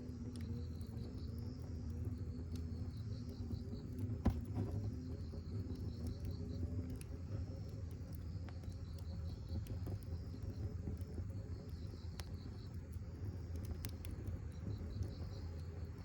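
Crickets chirping steadily, with occasional sharp crackles and snaps from a campfire; one louder pop about four seconds in.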